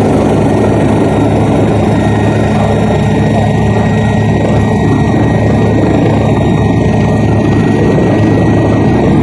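Helicopter running: loud, steady rotor and engine noise with a low hum and a faint, steady high whine.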